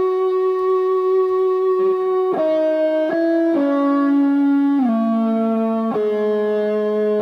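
Greco WS-STD electric guitar playing a slow single-note line of held, ringing notes, with one note sliding down in pitch a little past halfway.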